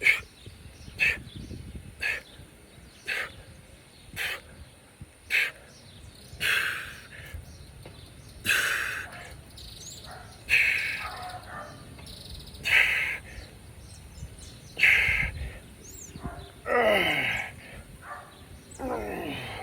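A man breathing hard in rhythm while doing squats: short sharp breaths about once a second, then longer breaths about every two seconds, with two drawn-out sounds falling in pitch near the end.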